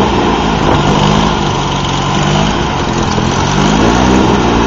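Off-road race car engine running and revving: its pitch drops right at the start, holds steady, then rises and falls again near the end.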